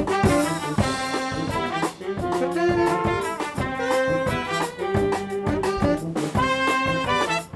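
Live brass band playing a swing-funk groove: trombones, trumpets and saxophones holding riffing notes over tuba and drums with a steady beat.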